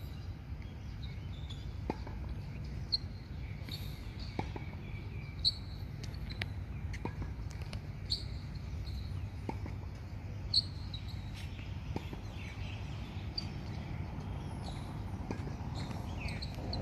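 Outdoor ambience: birds chirping in short, repeated high calls over a steady low rumble, with a handful of sharp taps, the loudest about five and a half and ten and a half seconds in.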